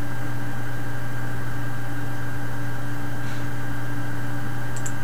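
Steady low electrical hum with an even hiss over it, unchanging throughout; a faint click near the end.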